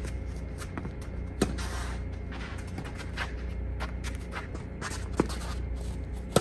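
Tennis ball struck by racquets back and forth in a baseline rally, as sharp pops about 1.5 s in, 5 s in and again at the end, with shoes scuffing and stepping on the hard court between shots.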